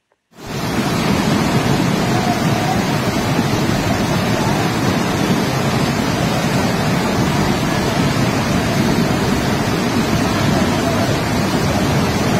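Torrent of muddy floodwater rushing down a street, a loud, steady rush of water that cuts in suddenly about a third of a second in.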